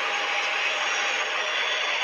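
Steady jet engine noise of an Airbus A320 landing, an even rushing sound with faint steady high-pitched tones in it.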